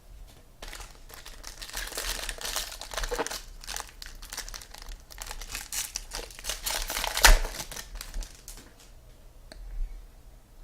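Trading card pack wrapper being torn open and crinkled by hand, with the loudest crackle about seven seconds in.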